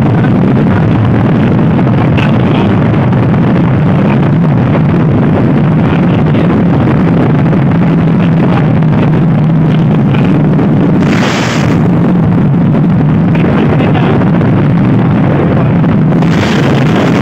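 Motorcycle engine running at a steady cruise, with wind rushing over the microphone; two short swells of louder hiss come about eleven seconds in and near the end.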